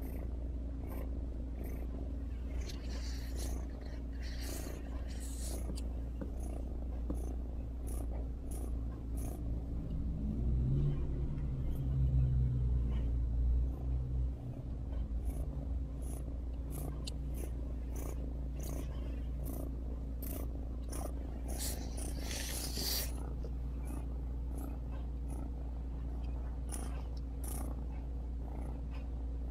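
Ragdoll cat purring steadily close to the microphone while being stroked. The purr swells louder for a few seconds around the middle. A brief rustle comes about three quarters of the way through.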